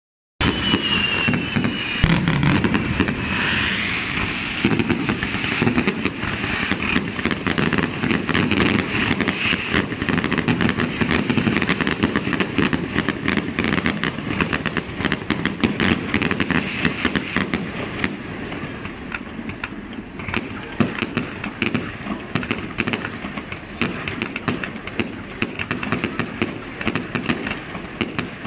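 Fireworks display: aerial shells bursting in quick, overlapping succession, with sharp bangs and dense crackling that never let up. There is a brief whistling tone near the start, and the barrage thins a little in the last third.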